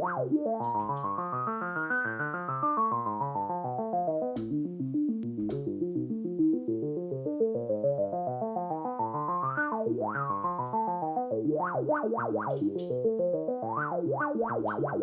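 Behringer Crave analog synthesizer running a fast sequenced pattern of repeated notes with no effects. The filter opens and closes so the tone brightens and darkens in slow waves, then in quicker sweeps near the end. A few short clicks are heard.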